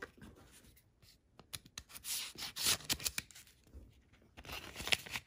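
Paper envelope sealed with washi tape being torn open, with paper rustling and crinkling. The tearing comes in two spells, one starting about a second and a half in and lasting about two seconds, and a shorter one near the end.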